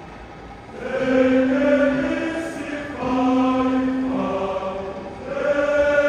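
Large choir singing a Samoan medley in long held chords, in three phrases, the first entering about a second in after a brief hush.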